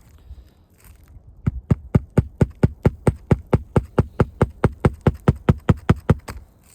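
Hammer driving roofing nails through asphalt shingles: a fast, even run of sharp strikes, about five a second, starting about a second and a half in, with a brief pause near the end.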